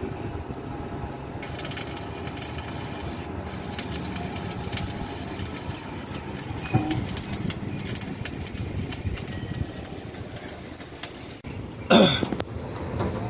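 Stick arc welding on a truck's steel front bumper: the arc's crackling, frying hiss in stretches, over a steady low hum. It cuts off sharply about eleven seconds in, and a short, louder burst of noise follows near the end.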